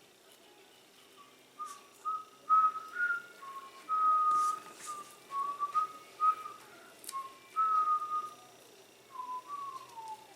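A person whistling a meandering tune in short notes, a few of them held longer, with a few light clicks.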